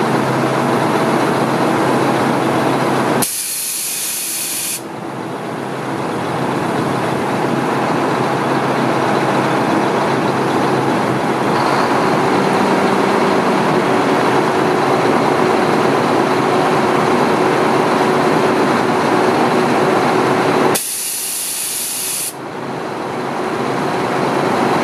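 1995 Mack RD688S tri-axle dump truck's diesel engine running steadily while the dump body is lowered, with two sharp hisses of released air, each about a second and a half long, a few seconds in and near the end.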